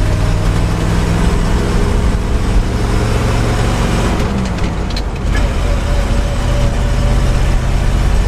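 Ford F750 grain truck's engine running steadily as the truck drives on the road, with a short dip and change in the engine note about four to five seconds in.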